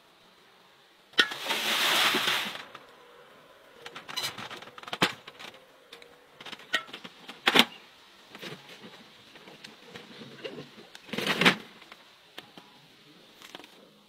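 Large glass jars being handled and packed with stuffed peppers: a series of irregular knocks and clinks. There are two louder noisy bursts, the first lasting about a second and a half from about a second in, the second short, near the end.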